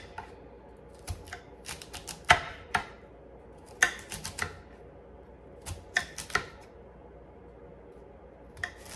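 Chef's knife dicing carrot chips on a stone cutting board: quick runs of sharp clicks as the blade strikes the stone, with short pauses between the runs.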